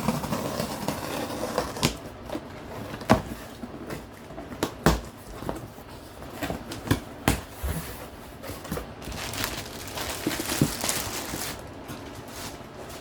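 A product box being opened by hand: scattered sharp clicks and knocks from the box and its parts, with a longer stretch of rustling packaging toward the end.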